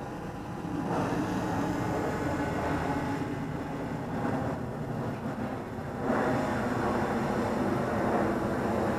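DJI Phantom 3 Advanced quadcopter's propellers humming steadily as it flies back toward the pilot, growing louder about six seconds in.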